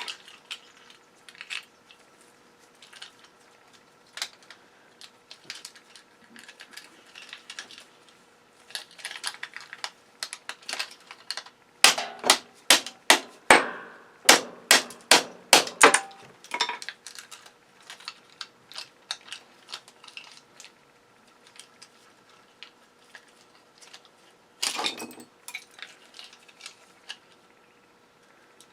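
A circuit breaker being taken apart with hand tools: scattered clicks and rattles of small metal and plastic parts. About halfway through comes a quick run of about a dozen sharp knocks, with another short burst of knocks near the end.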